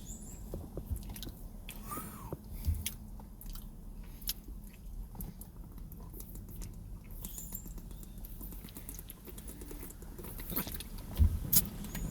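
Close-miked chewing of a Burger King sandwich, with many small wet mouth clicks and smacks and a few louder bites a little after ten seconds in.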